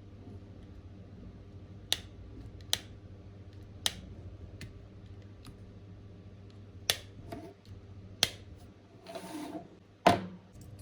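Sharp separate clicks and taps, about eight of them at uneven intervals, as small repair tools and parts are handled against a hard surface, with a short scraping rub about nine seconds in. A steady low hum runs underneath.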